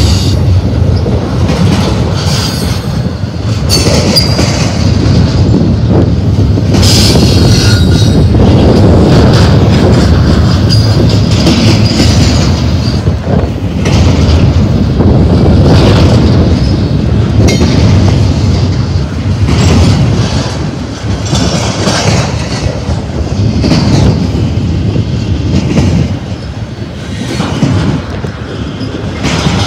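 Double-stack container train's well cars rolling past close by: a loud, steady rumble of steel wheels on rail, with clicks and knocks from the wheel trucks and brief high-pitched wheel squeals a few times.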